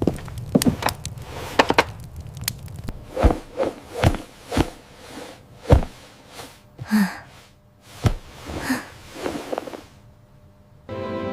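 A series of irregular knocks and thuds, over a low rumble during the first few seconds.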